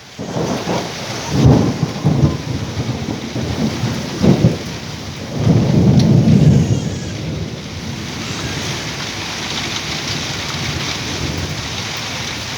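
Thunder over steady rain: several sharp cracks in the first few seconds, then a long deep rumble, after which only the rain remains for the last few seconds.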